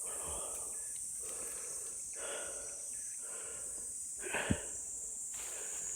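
A steady high-pitched buzz of insects, with a person's heavy breathing coming in every couple of seconds and a single sharp knock about four and a half seconds in.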